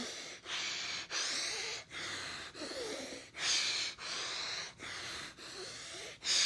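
Rapid, forceful breaths in and out through one nostril at a time, the other held shut with the fingers, about a dozen short breaths with brief gaps between them, as in fast alternate-nostril pranayama breathing.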